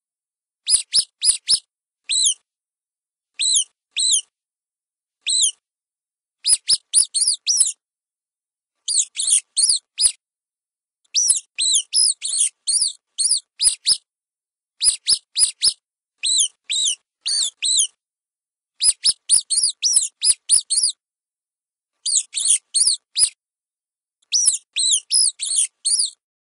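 Rat squeaks from a stock recording: short, very high chirps, each a quick rise and fall in pitch, coming in rapid runs of two to six with silent gaps between the runs.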